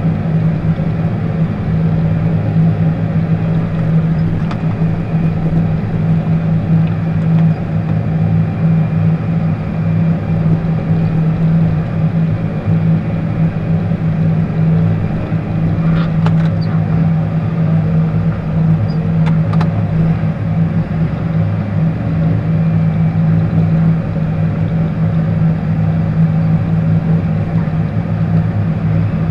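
John Deere tractor engine heard from inside the cab, running steadily under load while plowing snow, with a deep, even drone. Two faint clicks come about halfway through.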